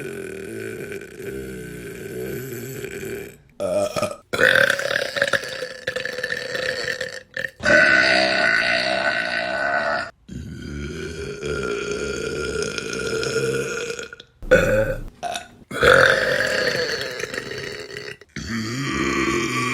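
A string of long, drawn-out burps from several women, one after another. Each lasts about two to four seconds and breaks off abruptly as the next begins.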